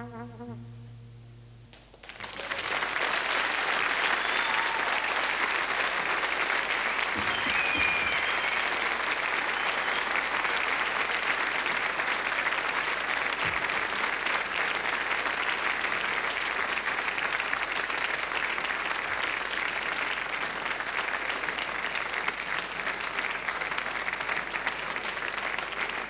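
A jazz trumpet's last note fades out, and about two seconds in the studio audience breaks into steady applause that keeps going.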